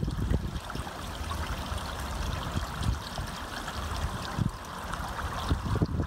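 Steady trickle of running water in a garden pond, with irregular low rumbling underneath.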